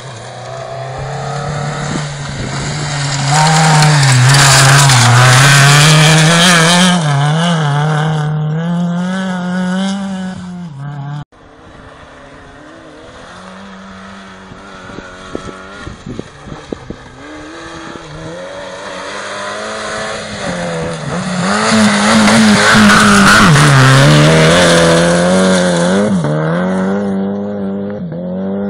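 Two rally cars in turn running flat out on a gravel stage. Their engines rev high and drop back with each gear change, and each grows loud as it passes close. The first car's sound cuts off abruptly about 11 seconds in, and the second car builds up after it.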